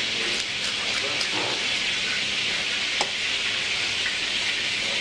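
Steady sizzling hiss of food frying on a hot kitchen stove, with a faint tap about three seconds in.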